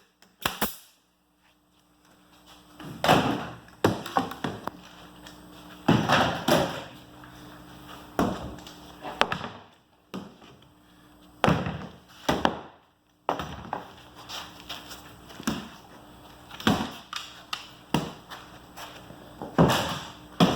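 Irregular wooden knocks and thumps, about fifteen of them one to two seconds apart, as the cornhole board, clamps and tools are handled on the bench, over a faint steady hum.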